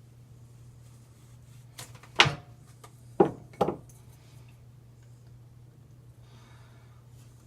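Sharp knocks of sink drain parts being handled: one about two seconds in, then two close together about a second later, over a steady low hum.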